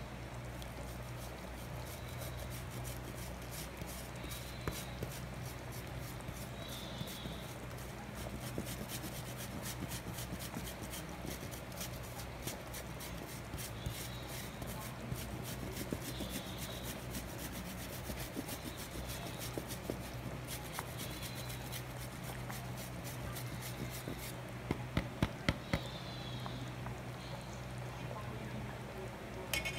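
Menudo sauce simmering in a pan: soft bubbling and popping over a steady low hum, with a few sharper clicks about 25 seconds in.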